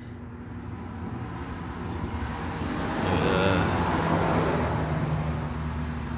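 A road vehicle passing by: the noise swells to a peak about three to four seconds in and then fades, over a steady low hum.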